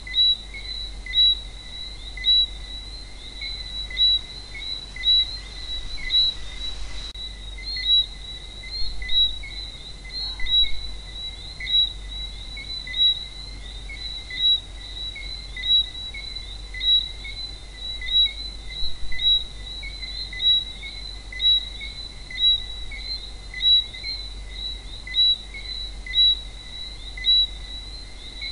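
Chorus of frogs calling: a dense, steady high-pitched chirping, with single louder chirps standing out about once a second.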